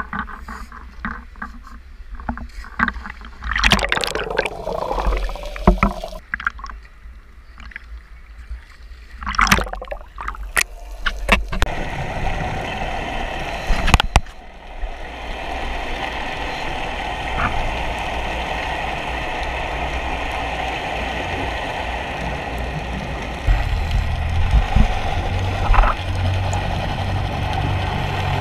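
Action-camera housing at the water's surface with water splashing and sloshing against it, then the steady muffled noise of being underwater once the camera goes under. A low steady hum joins about five seconds from the end.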